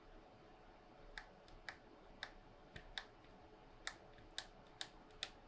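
Faint, sharp clicks at an uneven pace of about two a second, from the soldering iron's tip tapping and dragging across the IC pins and board. The clicks grow a little stronger in the second half.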